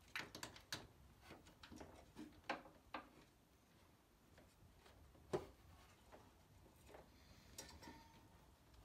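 Faint, scattered clicks and taps of a hand tool working on a lawn tractor's battery terminal bolts, the loudest about five seconds in.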